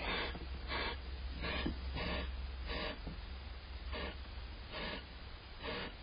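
Barn owl giving a string of breathy hissing calls, about one a second, over a steady low hum.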